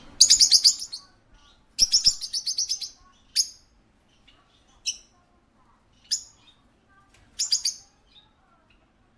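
Parakeet chirping: two quick runs of rapid high chirps in the first three seconds, then single sharp chirps every second or so, and a last short run near the end.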